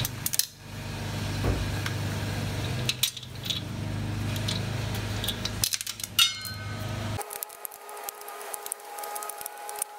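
Metal clinks and taps from the cylinder base nuts, washers and a wrench being worked at the base of a Harley-Davidson Shovelhead cylinder. They sound over a steady low hum that stops abruptly about seven seconds in.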